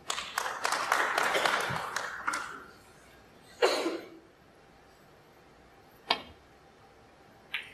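Snooker arena audience applauding for about two and a half seconds, a dense patter of clapping that stops quickly. One short louder sound follows about a second later, and a single sharp click comes about six seconds in.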